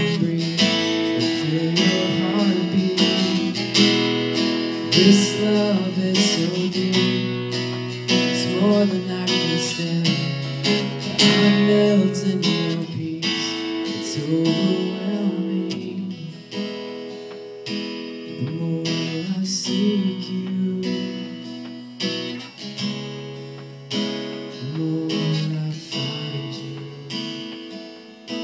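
Acoustic guitar strummed in a steady rhythm, playing softer from about halfway through.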